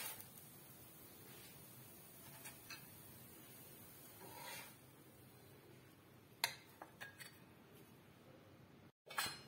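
Near silence: faint room hiss with a few soft swishes and small clicks, a cluster of clicks about six to seven seconds in and a short knock near the end.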